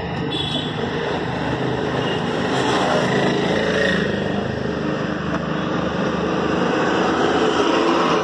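A motor vehicle engine running, swelling over the first few seconds and then holding at a steady level.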